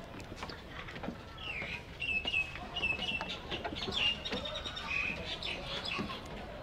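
A bird chirping a quick series of short, high notes for a few seconds, over outdoor background noise with scattered faint clicks.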